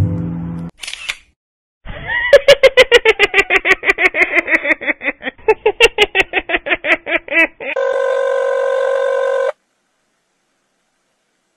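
An electronic trilling tone pulsing about six times a second, dipping in pitch and rising again, followed by a steady beep for about two seconds that cuts off suddenly.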